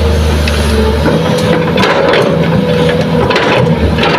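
Kobelco hydraulic excavator's diesel engine running as it works a loaded bucket over a dump truck, with its deepest drone dropping away about a second in. Scattered crunches and knocks of earth and stones falling into the truck's steel bed come in clusters through the rest.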